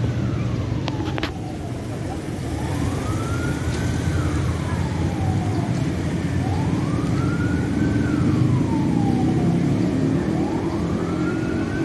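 A wailing siren: its pitch rises and then falls slowly, repeating about once every four seconds, over a steady low rumble.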